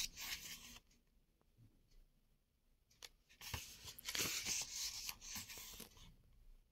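Pages of a thin paperback book being leafed through: paper rustling in two bursts, a short one at the very start and a longer one from about three and a half to six seconds in, with small clicks of the pages.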